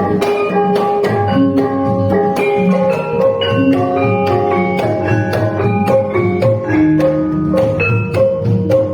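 Gamelan ensemble playing: struck metallophone notes ringing over one another in a busy, even pattern.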